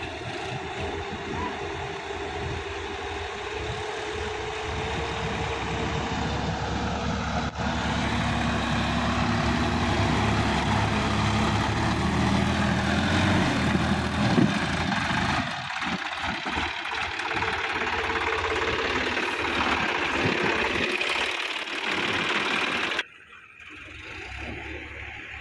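Sonalika DI-50 RX tractor's diesel engine running steadily and growing louder as the tractor comes close. The revs climb about halfway through as it works its way out of the flooded, muddy paddy, and near the end the sound drops suddenly to a quieter, more distant run.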